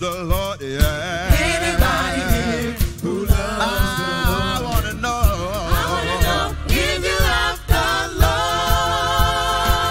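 Live gospel praise song: a lead singer and backing vocalists singing over a band with a steady drum beat, the voices settling into a long held chord about eight seconds in.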